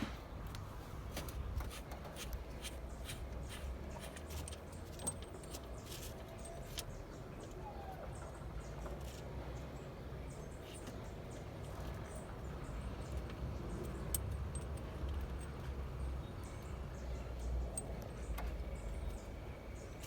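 Scattered light clicks and small knocks over a steady low rumble: hands working a speedometer cable through the car's dash toward the instrument cluster.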